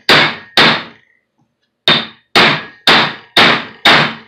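Hammer blows on the steel yoke ear of an F250 CV driveshaft to drive out a stuck U-joint bearing cap, each strike ringing. Two strikes, a pause of over a second, then a steady run at about two a second; the cap is not yet moving under the blows.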